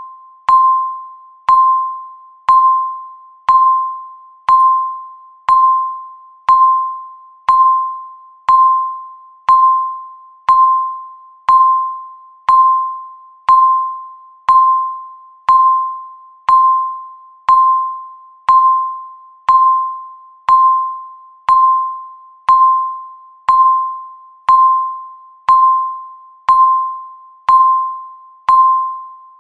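Countdown timer beep sounding once a second: a single electronic tone that starts sharply and fades away before the next beep.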